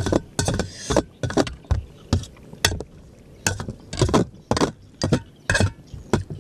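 Metal spoon scraping and clinking against a glass bowl and a metal serving tray: a string of short, sharp scrapes and knocks, a few a second, unevenly spaced.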